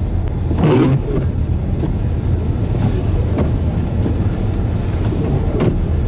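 Steady low rumble of a motor vehicle driving on the road, with a brief louder swell about a second in.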